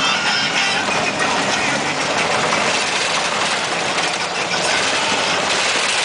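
Vehicle driving on a gravel road, heard from inside the cab: a steady engine hum under a constant rush of road noise.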